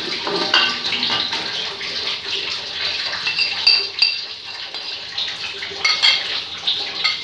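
A spoon scraping and clinking against a ceramic serving dish as marinated chicken is scraped out into a pot of masala, with several short ringing clinks over a steady hiss.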